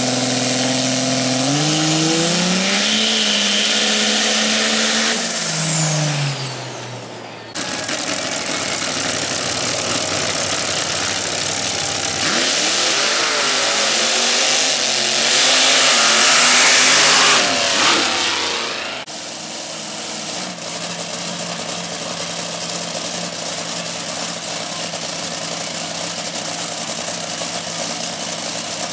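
Off-road race trucks on a dirt drag strip: an engine revs up at the start line, holds and falls back, with a high whine rising and falling along with the revs. Then comes a loud full-throttle run down the track, and finally a steadier engine sound at lower revs, with abrupt cuts between the parts.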